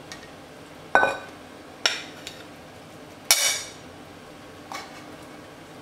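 Metal ladle clinking against an enamelled cast-iron casserole and a ceramic plate as stew is served: three sharp clinks with a short ring about a second apart, then a fainter knock near the end.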